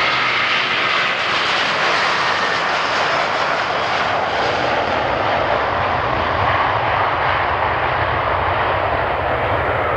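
Airbus A330-300 jet airliner at takeoff thrust, a loud steady jet noise. The higher hiss thins and a deeper low rumble comes up from about halfway through.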